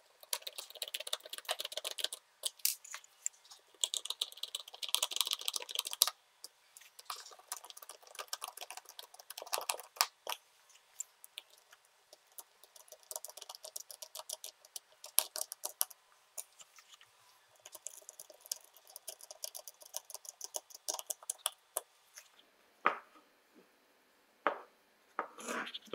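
Small screws being turned by hand with a precision Torx screwdriver into the plastic housing of a DeWalt impact driver: repeated groups of fast clicking and scraping as the threads bite into the plastic. A few separate knocks near the end as the tool body is handled.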